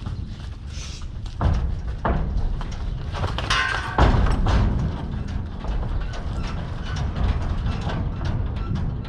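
Metal clanks and thumps around a livestock trailer over a steady low rumble, with sharp knocks about a second and a half and two seconds in and the loudest bang about four seconds in.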